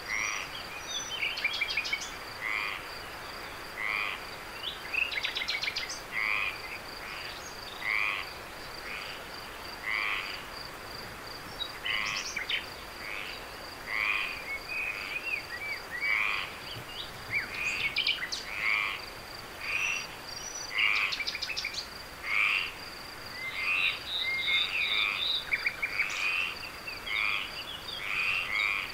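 A night chorus of frogs croaking, overlapping calls coming one or two a second, over a steady high pulsing insect trill.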